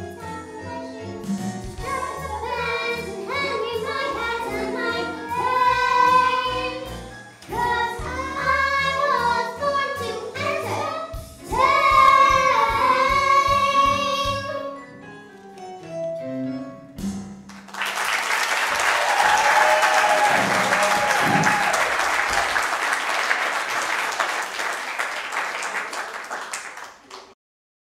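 A group of girls singing a show tune over a backing track, ending on a held final note about fifteen seconds in. After a short lull, an audience applauds for about ten seconds, with a few raised voices in it, until it cuts off abruptly near the end.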